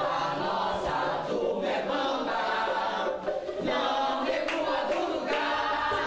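A group of voices singing a pássaro junino song together in chorus, in short phrases with brief breaks between them.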